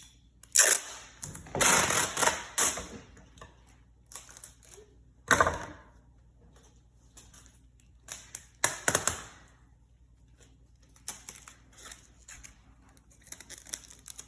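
Adhesive tape being pulled off and wrapped around plastic bottles, with crinkling plastic, in several short rasping bursts and smaller clicks of handling near the end.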